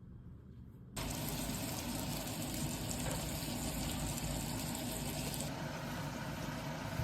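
Kitchen tap running, a steady rush of water that starts suddenly about a second in; the hiss becomes softer about 4.5 seconds later.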